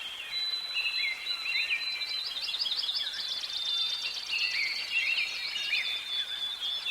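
Several songbirds chirping and singing over one another in quick, repeated high phrases, with a steady high note held underneath.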